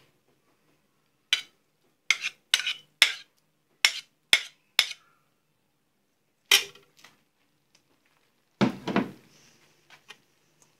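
Metal spoon clinking against a plate and a large metal cooking pot as cooked chicken pieces are spooned onto a layer of rice. There is a quick run of sharp clinks over the first five seconds, another about six and a half seconds in, and a duller, heavier knock near the end.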